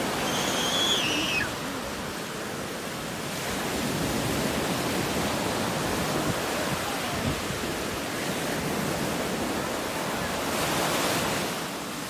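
Black Sea surf breaking and washing up over a sandy shore, a steady rush of water with a louder surge of wash near the end. A short high-pitched cry sounds briefly near the start.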